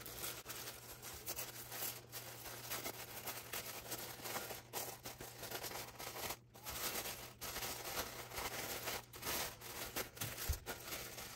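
Paper wrapping rustling and crinkling as a package is unwrapped by hand, with many small irregular crackles and scrapes.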